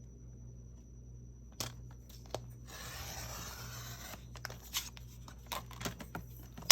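Cardstock being cut in one smooth stroke lasting about a second and a half, with sharp clicks and taps of the paper and tool being handled before and after.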